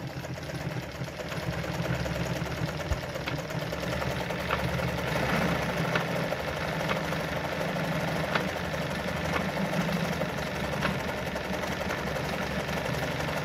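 Brother Pacesetter ZZ2-B702F sewing machine running steadily, sewing a short straight stitch through denim.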